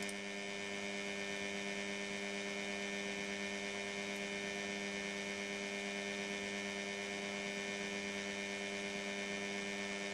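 Electric motor of a demonstration turntable running at a steady speed, a constant hum.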